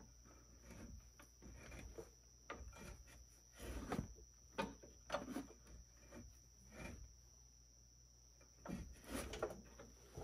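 Faint, irregular clicks, taps and rubbing of a wrench and metal suspension hardware being handled while the upper control arm's cam bolt is worked loose.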